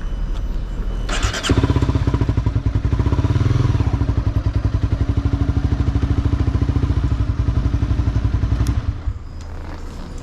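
Honda CBR250R's single-cylinder engine running with an even, rapid pulsing beat at low speed. It drops away about nine seconds in.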